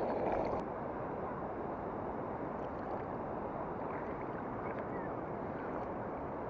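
Shallow river water sloshing around a common snapping turtle as it is let go from the hands, briefly louder in the first half-second. Then a steady wash of moving water with wind on the microphone.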